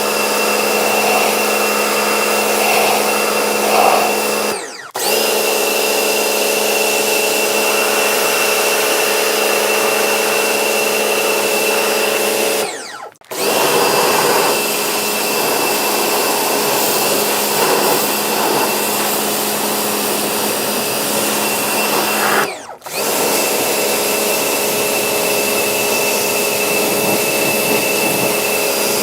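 Electric pressure washer running steadily as it sprays, the motor dropping out briefly three times, roughly every eight to ten seconds, when the trigger is let go, then starting up again.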